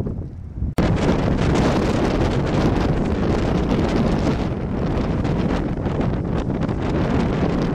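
Blizzard wind buffeting the microphone in strong gusts. It is quieter at first and then jumps suddenly louder under a second in, staying loud and gusty.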